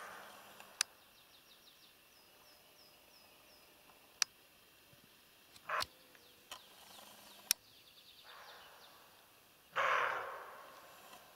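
Roe deer giving short alarm barks, three times, the last and loudest near the end, over songbirds singing. A few sharp clicks fall between the barks.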